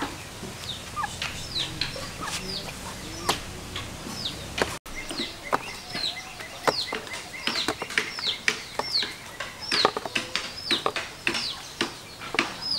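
Chicks peeping repeatedly: short, high, downward-sliding peeps, coming about twice a second in the second half, over scattered light clicks.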